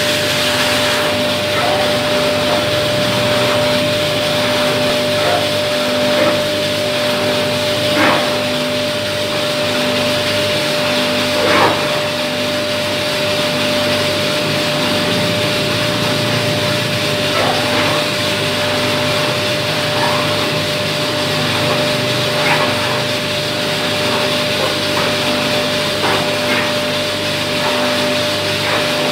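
Gas-fired drum coffee roaster running: a steady fan-like rush with a steady whine and a low pulse about once a second, and a few short knocks.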